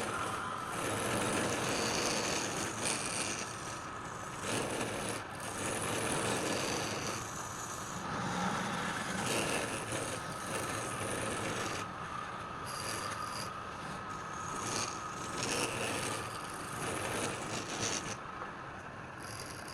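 Wood lathe running with a faint steady whine while a tool scrapes against the spinning wood. The scraping swells and eases with each pass.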